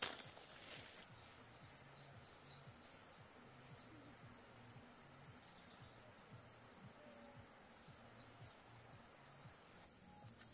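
A steady, high-pitched insect chorus, with a couple of sharp knocks right at the start.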